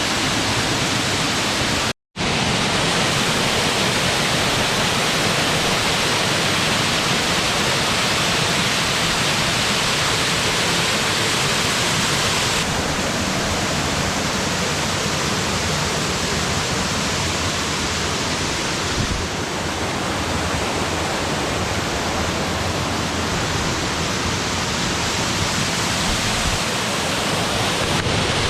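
Waterfall: a loud, steady rush of falling water that cuts out completely for a split second about two seconds in.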